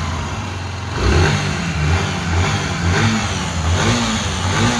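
Yamaha YBR 125's single-cylinder four-stroke engine running and being revved in short blips about once a second, making the knocking noise ("barulho") that sounds like a connecting rod but which the owner puts down to a worn balancer shaft.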